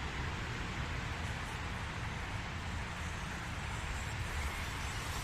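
A 1/16-scale WPL C24K RC truck with its stock 180 brushed motor driving over outdoor ground, heard as a steady noise with a low, fluttering rumble on the microphone.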